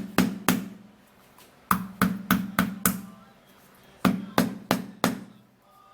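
Garlic cloves being hit to loosen their peel: sharp knocks on a hard surface, each with a short low ring, in three quick runs of blows about three a second, the first ending just after the start, the second about two seconds in and the third about four seconds in.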